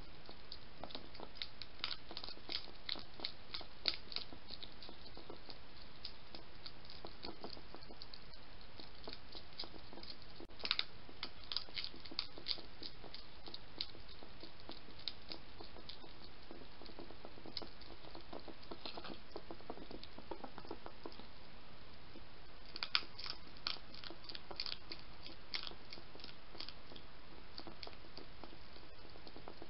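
European hedgehog crunching food from a dish: runs of quick, crisp chewing clicks, thickest at the start, about ten seconds in and again about twenty-three seconds in, over a steady background hiss.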